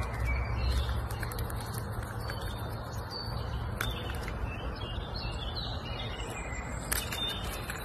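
Small birds chirping, with short high calls scattered through, over a steady rushing background noise and a few sharp clicks.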